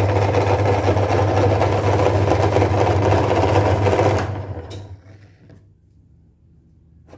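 Electric meat grinder motor running steadily with a low hum, then winding down and stopping about four seconds in.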